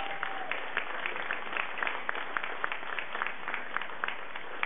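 Audience applauding in a meeting hall, many hands clapping at once.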